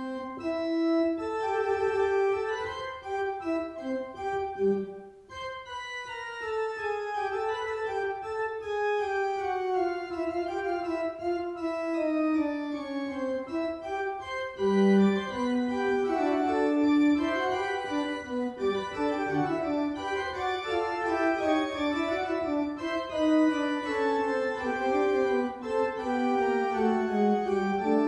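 Organ playing a fugue in C major, several independent melodic lines moving against one another, with a brief break in the sound about five seconds in.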